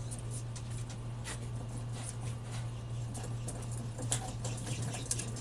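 Racing pigeons shuffling in transport crates: irregular light scratching and tapping of feet and wings, over a steady low hum.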